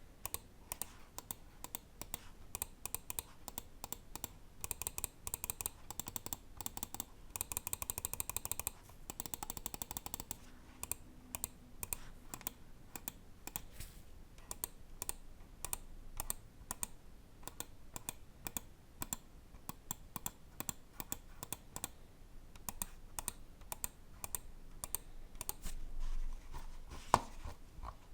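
Lamzu Maya 4K gaming mouse's Huano-switch buttons clicking, one press after another. About seven seconds in comes a fast run of rapid clicks lasting a few seconds, and near the end there is one louder click.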